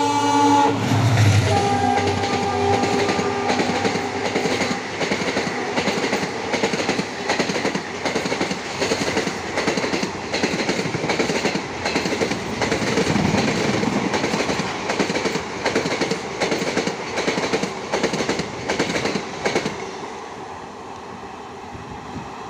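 Locomotive-hauled Indian Railways express with sleeper coaches passing at speed. The horn cuts off less than a second in and the locomotive goes by loudly. Then the coach wheels clatter over the rail joints in a fast, even rhythm until, a couple of seconds before the end, the train moves away and the sound fades.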